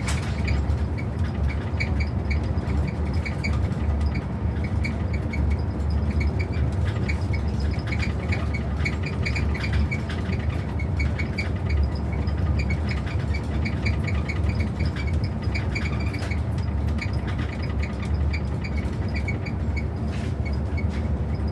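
Train running steadily: a continuous deep rumble with many light, rapid clicks and rattles over it.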